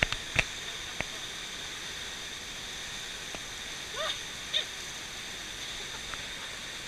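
Steady rush of a waterfall, with a few sharp clicks in the first second and a short, distant call or shout about four seconds in.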